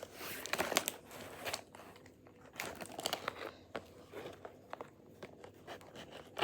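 Plastic and cardboard toy packaging crinkling and rustling as it is handled, with irregular small clicks and taps.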